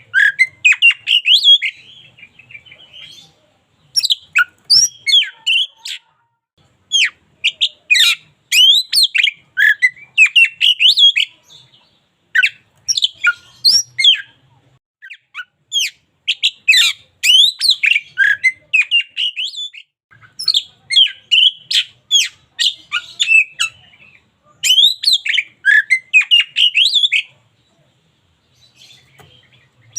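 Oriental magpie-robin singing: bursts of rapid, varied whistles and chirps in phrases a second or two long, separated by short gaps, with a longer pause near the end.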